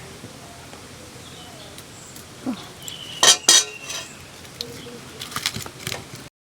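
A metal utensil clinking against metal cookware: two sharp ringing clinks about three seconds in, then lighter clicks and scrapes. The sound cuts off suddenly near the end.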